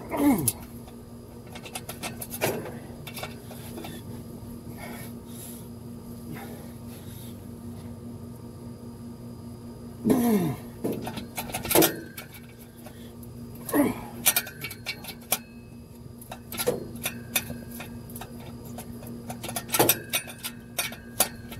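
Hand ratchet clicking and metal tools clinking as exhaust bolts are worked loose under a car, in bursts with pauses between, with a few short squeals that drop quickly in pitch.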